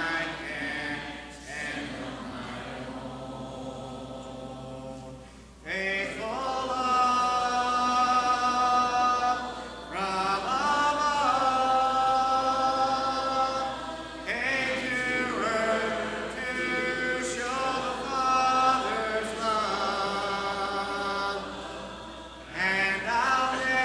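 A congregation singing a hymn a cappella, unaccompanied voices in sung phrases with short breaks between lines.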